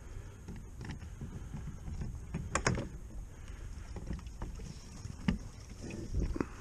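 Kayak on the water at night: a steady low wash of water noise, with a handful of short knocks against the hull or gear, the loudest a pair about two and a half seconds in.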